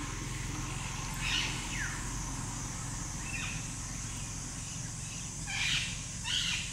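Woodland ambience: a steady high insect drone, with a few short bird calls scattered through it, the loudest two near the end.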